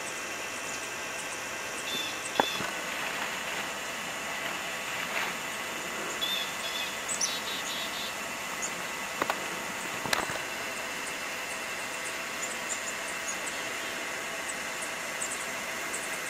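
Steady background hiss of outdoor ambience, with a few faint high chirps and a handful of soft clicks.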